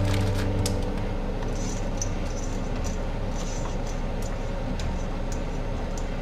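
A steel pot of spaghetti boiling on a gas hob, a steady rushing noise, with light clicks as chopsticks stir the pasta in the pot. The last notes of background music die away about a second in.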